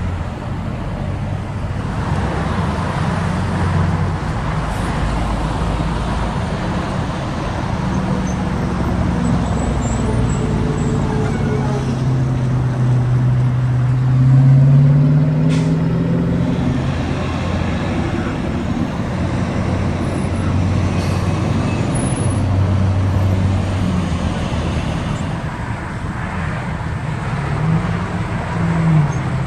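Road traffic with semi trucks and cars moving through an intersection. About halfway through, an engine climbs in pitch as a vehicle accelerates away, the loudest moment, with another brief rise near the end.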